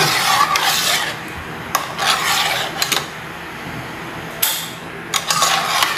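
Metal spoon stirring and scraping a cooked cornstarch-and-sugar mixture in a stainless steel pot, with a few sharp clinks of the spoon against the pot. The scraping is loudest in the first second, then quieter.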